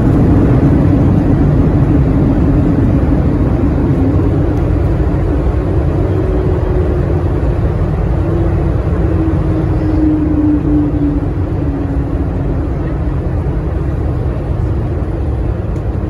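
Airliner cabin noise: the jet engines and airflow make a steady low rumble, with a faint tone that drifts slowly in pitch.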